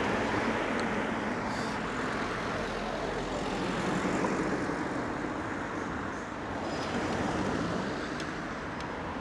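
Steady road traffic noise, an even rush of vehicles with no distinct single event.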